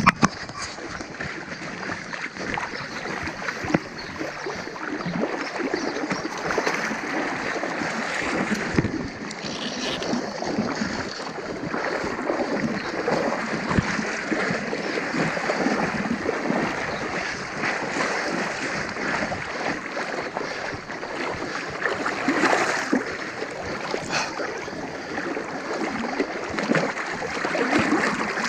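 Fast, shallow river water rushing and splashing close to the microphone as an angler wades through it, with a few sharp knocks.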